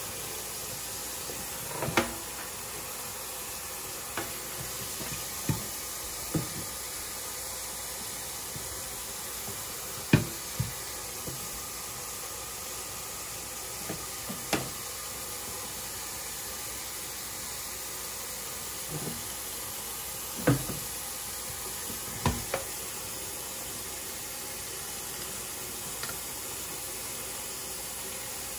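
Kitchen tap running steadily into a stainless steel sink, with about a dozen irregular knocks of the knife and catfish against a plastic cleaning board clamped over the sink. The loudest knocks come about ten and twenty seconds in.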